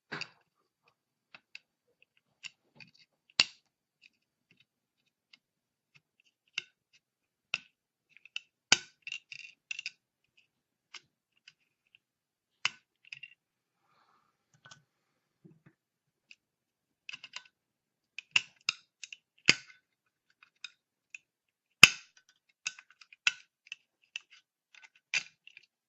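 Irregular sharp clicks and snaps of a melted plastic heatbed connector housing being cut and pried away from its pins on a circuit board, the loudest snap about three-quarters of the way through.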